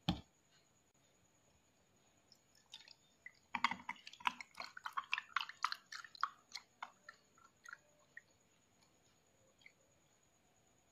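A thump at the start, then milk poured from a carton over ice cubes in a glass: a few seconds of irregular glugging and crackling splashes that thin out and stop.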